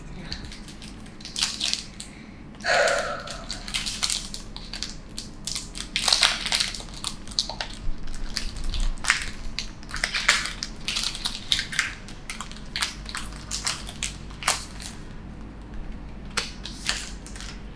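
Foil wrapper of a Pokémon card booster pack being torn open and crinkled by hand: a string of irregular crackles and rustles.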